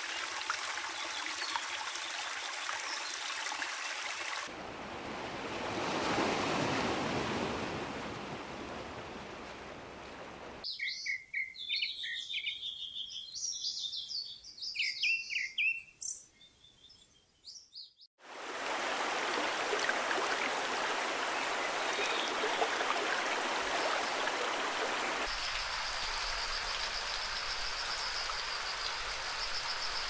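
Steady rushing of running water. About ten seconds in it cuts abruptly to birds chirping and singing against a quiet background, then the running water returns at about eighteen seconds. Near the end a steady high trill sounds over the water.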